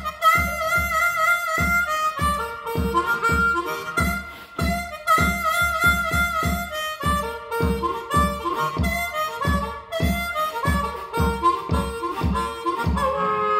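Blues harmonica played in cupped hands: a rhythmic solo with bent notes and warbling trills, over a steady low thump about two to three times a second. Near the end it settles on a long held chord.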